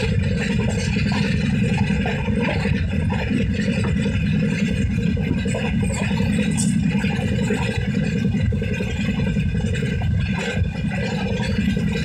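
Steady low rumble of a moving train heard from inside the carriage as it runs along the track.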